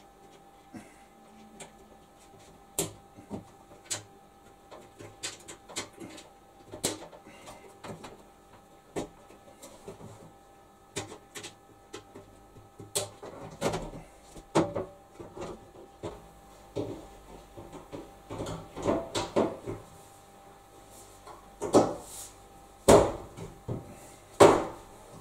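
Scattered clicks, taps and knocks of plastic and metal parts as a washing machine's front panel and door are handled and fitted back in place, growing busier partway through, with two heavier thumps near the end.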